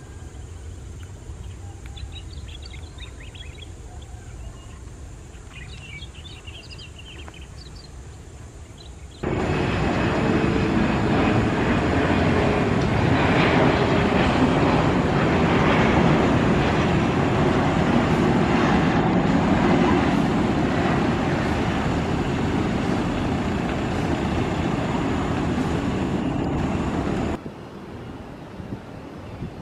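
Rear-engined regional jet flying past low on landing approach: a loud, steady engine rush that starts abruptly about nine seconds in and stops abruptly near the end. Before it, faint outdoor background with a few bird chirps.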